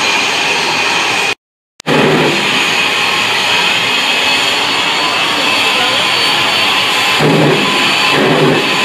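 Jet engine of a jet-powered fire-truck show truck running with a loud, steady roar, pulsing in the lower range near the end as it shoots flame. The sound drops out completely for about half a second, about a second and a half in.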